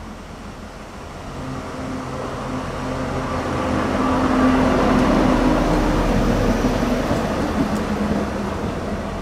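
Siemens ER20 (ÖBB class 2016) diesel-electric locomotive with its V16 diesel engine running as it draws near and passes. The engine hum grows louder to a peak about halfway through, then eases a little.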